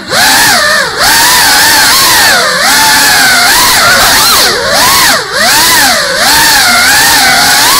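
GEPRC CineLog35 cinewhoop FPV drone's brushless motors and ducted propellers whining loudly, heard from the onboard camera's microphone. The pitch keeps rising and falling with the throttle, with brief dips where the throttle is cut, about a second in and twice more later.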